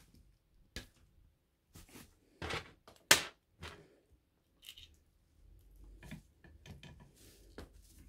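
Scattered sharp clicks and snips from wire cutters and a metal screw-on F connector being handled during coaxial cable termination, the loudest a sharp snap about three seconds in.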